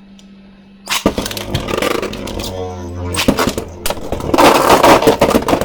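Beyblade Burst spinning tops launched into a plastic stadium about a second in, whirring and scraping, with a run of loud sharp clashes near the end.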